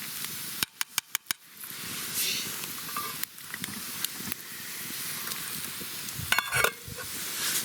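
Pot of pasta bubbling in water over the campfire with a steady sizzle. There are a few sharp clicks about a second in and a quick run of clinks a little after six seconds, like a utensil stirring against the pot.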